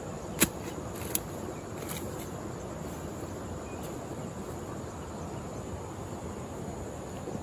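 Two sharp strikes of a hand hoe chopping into soil, about half a second and a second in, over steady insect chirring.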